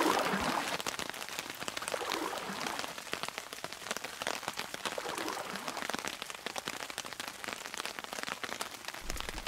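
Heavy rain falling on a river's surface: a dense, irregular spatter of many individual drop hits on the water.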